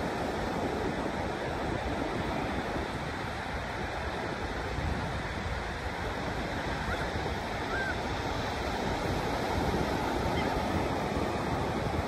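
Ocean surf breaking and washing up the beach as a steady wash of noise, with wind rumbling on the microphone. A single short gull call sounds about two-thirds of the way through.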